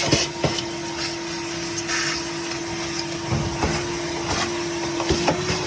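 A motor-driven machine running, with a steady hum and rushing hiss and irregular light knocks. It cuts off suddenly near the end.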